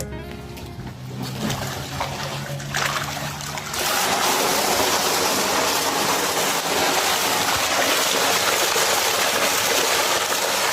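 Water rushing and splashing: fairly quiet at first, then suddenly louder and steady from about four seconds in.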